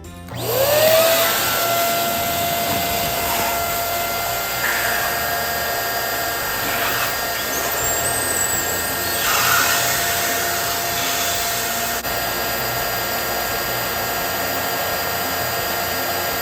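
Small electric balloon inflator running: its motor spins up within the first second, blows steadily with a constant whine and rush of air, and winds down as it is switched off at the end.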